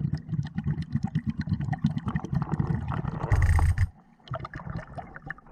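Underwater diver's breathing through a Nemo by Blu3 hookah regulator: dense crackling and popping of bubbles over a pulsing low rumble, with a loud gush of exhaled bubbles about three and a half seconds in, then quieter crackling.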